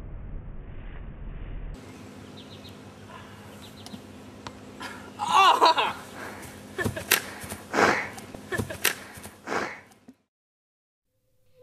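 A person's loud, wavering cry about halfway through, followed by a string of short, sharp vocal sounds and knocks, which cut off suddenly near the end.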